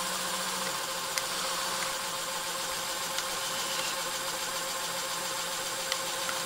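Small electric motors of a Mould King 19002 building-block crane truck running steadily, driving its pneumatic pumps to build air pressure, a constant whirring hum with a few faint clicks.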